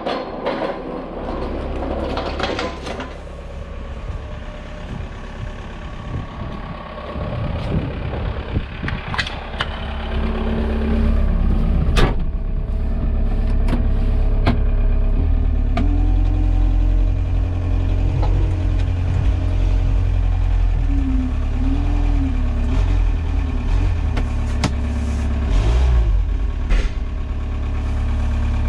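Forklift engine running steadily from about ten seconds in, with sharp clicks and knocks from the cab door and controls as the driver gets in and sets off. Before it picks up there are only scattered handling knocks and rustling.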